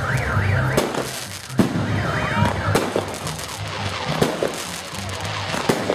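Fireworks going off: repeated sharp bangs and crackles, with warbling whistles from whistling fireworks just after the start and again around two seconds in.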